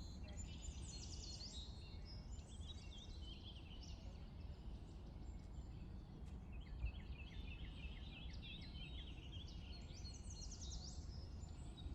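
Several small birds chirping and singing faintly, with many quick notes and short downward-sweeping whistles over a steady low background rumble. A brief low bump comes about seven seconds in.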